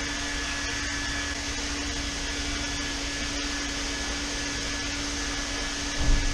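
Heat gun running steadily, its fan blowing with a steady hum, as it warms warped plastic dirt-bike bodywork to soften it. A brief low thump about six seconds in.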